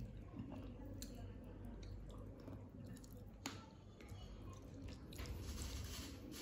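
Fingers squishing and kneading soft food on a plate, with small wet clicks and one sharper click about three and a half seconds in.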